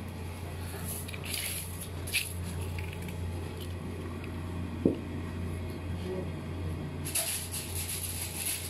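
Cooked rice tipped from an aluminium pot onto a plastic sheet, with soft scrapes and rustles, a dull knock about five seconds in and plastic crinkling near the end, over a steady low hum.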